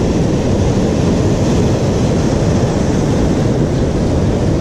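Sea surf breaking and washing over shore rocks, a steady loud rushing, with wind rumbling on the microphone.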